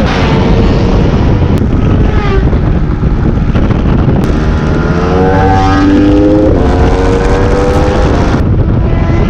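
Onboard sound of a Yamaha R15 V3's single-cylinder engine at speed on track, its note climbing as it accelerates, with a clear rise in the second half followed by another. Heavy wind rumble on the microphone runs under the engine throughout.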